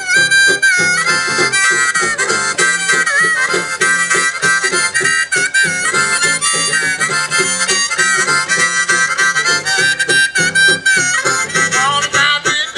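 Live old-time music: a reedy, harmonica-like wind instrument blown into a horn bell plays a melody with several notes at once, over the rhythm of a plucked banjo.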